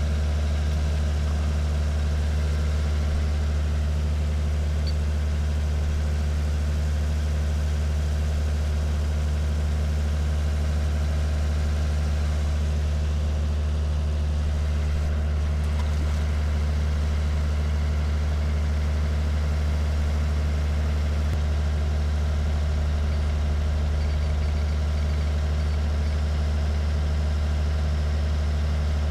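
A steady low mechanical hum, even and unchanging throughout, like an engine or motor running at idle.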